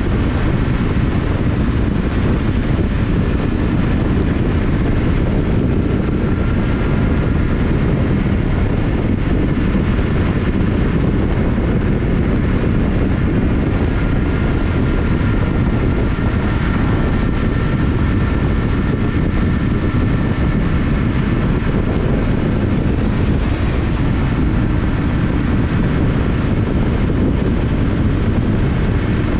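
Yamaha Ténéré 700's 689 cc parallel-twin engine running at a steady cruising speed, heard from the rider's position with a heavy low rush of wind on the microphone. There are no rev changes or gear shifts, only a faint wavering whine above the engine.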